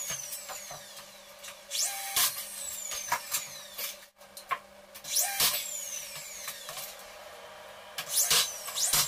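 DeWalt cordless drill driving screws into a wooden frame in several short bursts, the motor spinning up each time; the longest burst comes near the end.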